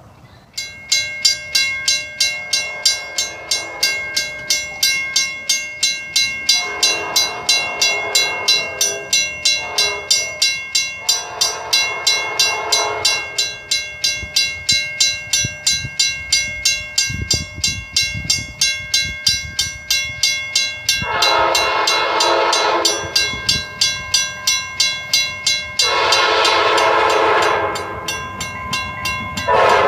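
Railroad grade-crossing bell starting about a second in and ringing steadily at about two strikes a second. Over it an approaching commuter train sounds its horn in a series of long blasts, the last two near the end the loudest as it nears the crossing.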